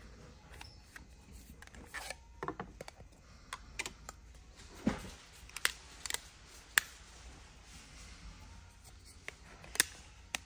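Hard plastic shell case pieces clicking and snapping onto a Samsung Galaxy Z Flip 4 as the case is fitted, with light handling rubs between a string of sharp clicks. The loudest snaps come about five, seven and ten seconds in.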